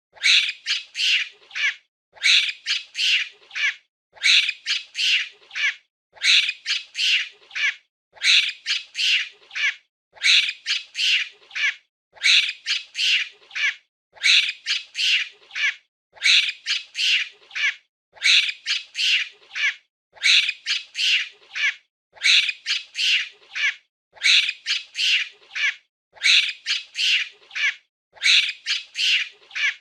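Monkey chattering: a burst of several rapid, high-pitched screeching calls, repeated the same way about every two seconds as a loop.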